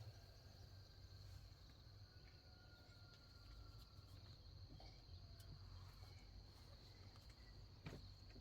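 Near silence with a faint, steady high-pitched insect trill, like crickets, running throughout.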